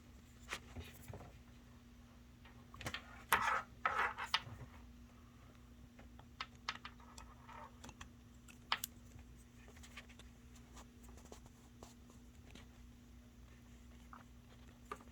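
Scattered plastic clicks and rustling from handling an Ethernet cable and a USB Ethernet adapter as the cable's plug is pushed into the adapter. The loudest handling comes in a short cluster about three to four seconds in, over a faint steady hum.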